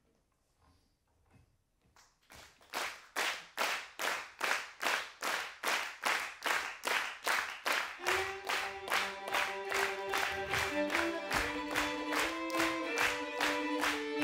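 Hand-clapping in a steady beat, about two and a half claps a second, starting about two seconds in. About eight seconds in, a violin begins playing a melody over the clapping.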